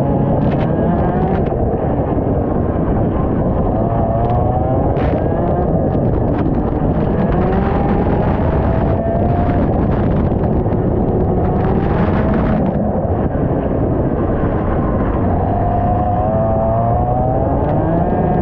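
IAME X30 125cc two-stroke kart engine at racing speed, its pitch climbing as it accelerates and dropping off as the driver lifts, several times over. It is partly buried in a heavy rumbling wind noise on the onboard microphone.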